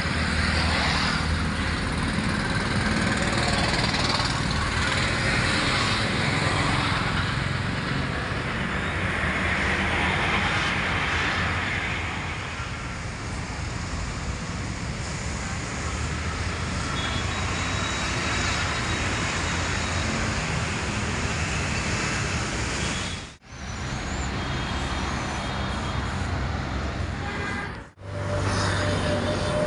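Steady outdoor background rumble and hiss, with no clear single source, cutting out briefly twice in the last several seconds.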